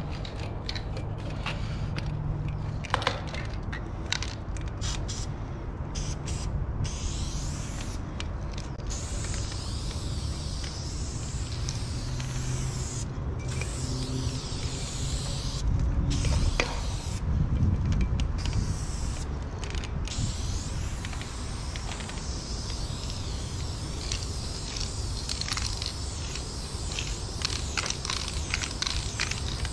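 A 400 ml aerosol spray can (Dang Prime black) hissing as paint is sprayed onto a concrete wall, in stretches of a few seconds broken by short pauses. A low rumble runs underneath and swells briefly about halfway through.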